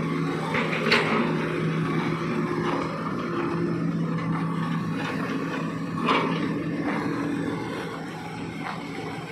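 Wheeled excavator's diesel engine running steadily, with a couple of short sharp knocks.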